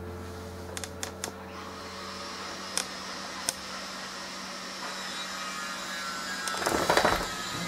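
Power drill running steadily with a droning hum. A few sharp clicks come in the first few seconds, and a louder noisy burst near the end.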